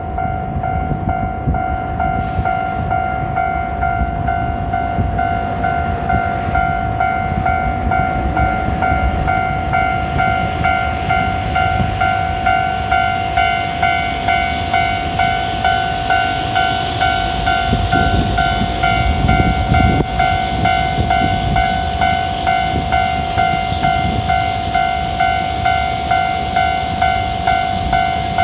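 Japanese railway level-crossing warning bell ringing: one pitched electronic ding repeated steadily, about one and a half strikes a second, over a low rumble that grows louder around the middle.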